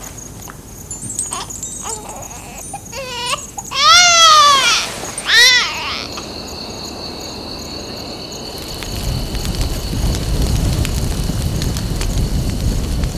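A young child crying in several loud wails that rise and fall in pitch, the loudest about four seconds in, stopping about six seconds in. Then a steady high two-tone chirring of night insects, with a low rumbling noise setting in about nine seconds in.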